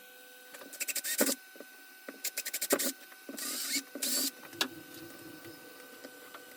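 Quick runs of sharp clicks and rattles, with two short scraping noises a little after the middle: small hard parts being handled.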